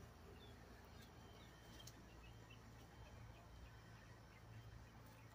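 Near silence: faint outdoor background with a low steady rumble and a few faint, short, high chirps.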